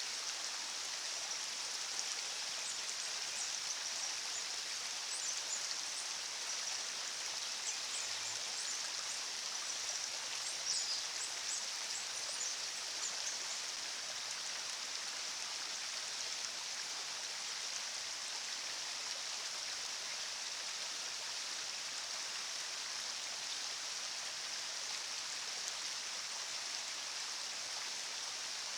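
Steady rushing of river water, an even hiss strongest in the high range. Faint short high chirps sound over roughly the first dozen seconds.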